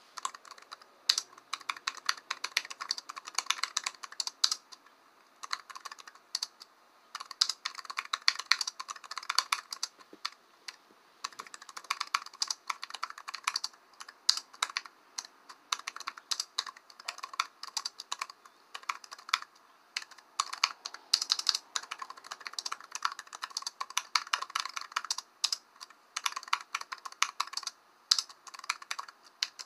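Typing on a computer keyboard: fast runs of key clicks in bursts of a few seconds, broken by short pauses.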